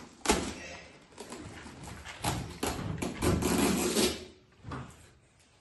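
Rustling and crinkling of clear plastic wrapping being pulled out of a gift box, with a series of short knocks and taps, busiest about three seconds in and dying away near the end.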